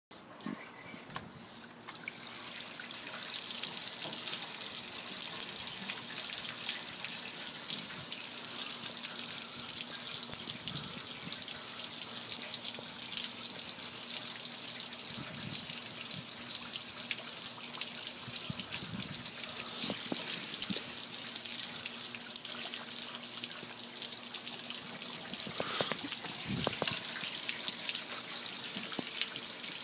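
Water spraying from a hose onto a gas grill, splashing and running off its metal lid and control panel. The spray starts about two seconds in and then hisses steadily.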